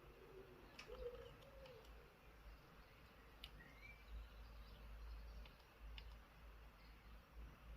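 Near silence with a few faint, scattered clicks of a pick and tension tool working the levers inside a Chubb 3U114E five-lever lock.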